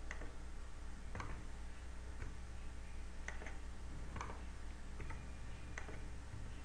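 Computer mouse buttons clicking: about seven short, sharp clicks at uneven spacing, roughly one a second, over a faint steady low hum.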